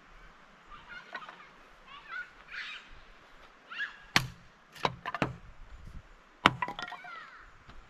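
Birds calling in short chirping phrases, with four sharp knocks from about four to six and a half seconds in, over a faint steady rush of water.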